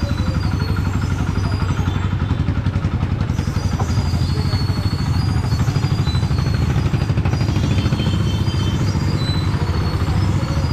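Motorcycle engines running steadily amid passing road traffic, with a low, fluttering engine hum throughout and faint voices.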